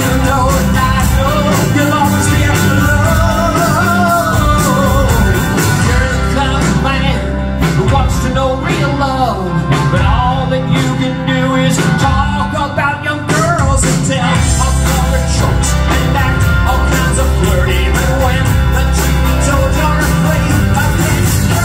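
Rock band playing live: electric guitars, bass guitar and drums.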